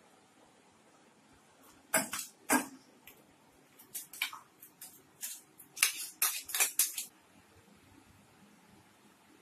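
Kitchen utensils and dishes clinking and clattering. Two sharp knocks come about two seconds in, then a run of quicker clinks that stops about seven seconds in.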